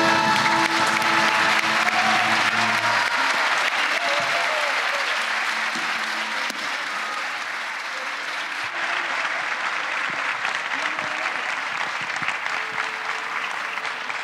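Audience applauding as the orchestra's closing chord dies away over the first few seconds. The applause then goes on steadily, gradually growing quieter.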